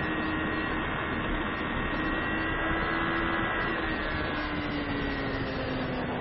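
Sport motorcycle engine running hard, heard from a camera mounted on the bike, with a steady rush of wind and road noise under it. The engine note holds steady, then falls slowly in the last couple of seconds.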